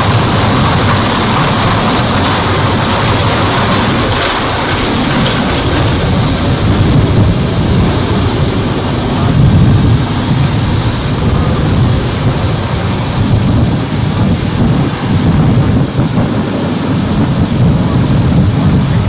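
Train hauled by Shay geared steam locomotives rolling by close to the microphone: a steady rumble under a continuous high-pitched squeal of wheel flanges on the rails.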